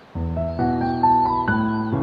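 Background music starts abruptly just after the start: a melody of held notes stepping upward over sustained chords.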